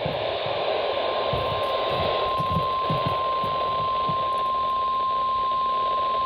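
NOAA Weather Radio warning alarm tone, a single steady pitch near 1 kHz, sounding over radio static hiss, with scattered low crackles in the first few seconds. This is the alert tone that comes before a tornado warning is read out.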